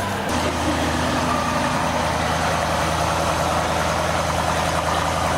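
BMW M850i xDrive's 4.4-litre twin-turbo V8 idling steadily.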